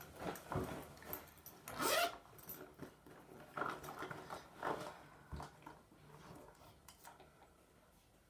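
Handling noise: rubbing, rustling and a few light knocks as someone settles into a chair and picks up small makeup items, dying away near the end.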